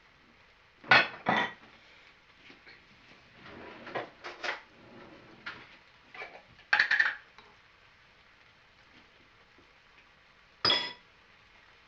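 A cooking utensil knocking and scraping against a pan of fried rice: two clatters about a second in, a few more around the middle, a longer clatter near seven seconds and a last knock near the end.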